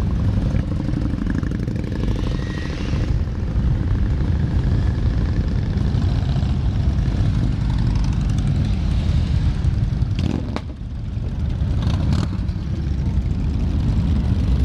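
A procession of motorcycles, mostly cruisers and touring bikes, riding slowly past one after another, their engines making a steady, continuous rumble.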